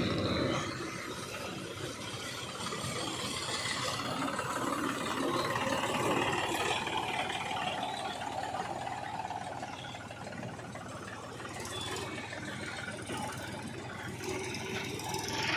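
Heavy diesel machinery running steadily: the engines of a JCB 3DX backhoe loader and a Mahindra 275 DI tractor at work loading sand.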